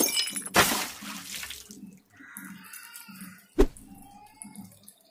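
Milk being poured in a stream into a steel pot of hot payasam, hissing and splashing as it lands, with one sharp knock about three and a half seconds in.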